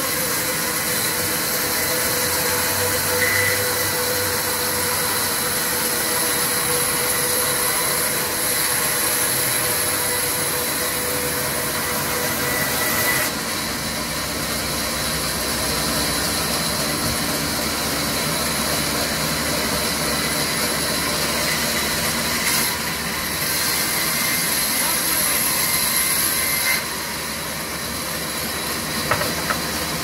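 Sawmill band saw running and cutting through a log: a steady loud mechanical noise with a strong high hiss from the blade in the wood. The sound shifts about thirteen seconds in and eases slightly near the end.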